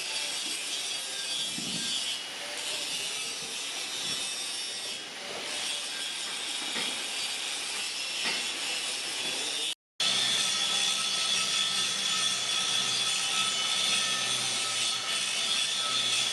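Continuous scraping and rasping of a tool working metal, with a few light knocks. After a sudden break about ten seconds in, a machine runs with a steady hum under the scraping.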